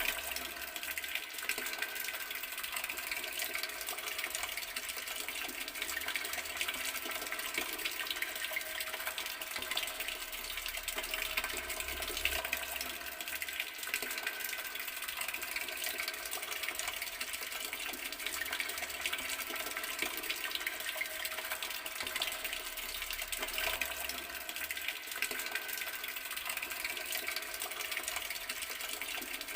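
Water running steadily from an open outdoor garden tap, a continuous splashing stream with no breaks.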